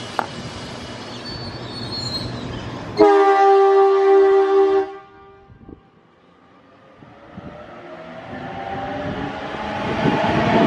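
Train running past, then a loud train horn blast about three seconds in that lasts about two seconds and stops suddenly. After a short lull, another train approaches, growing steadily louder toward the end.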